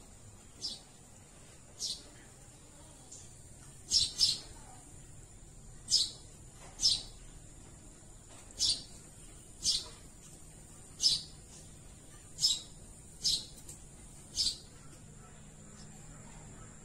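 A bird giving short, sharp chirps, about a dozen of them roughly once a second with uneven gaps, over a faint steady high insect hum.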